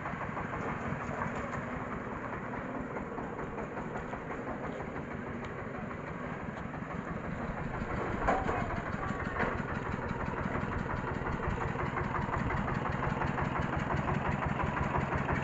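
Diesel engine of a mobile rice-huller vehicle running with a rapid, even chugging as it drives, getting louder from about halfway through as it comes close. A single sharp knock sounds just past halfway.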